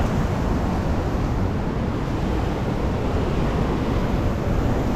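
Steady rush of surf washing against the rocks, mixed with wind buffeting the microphone.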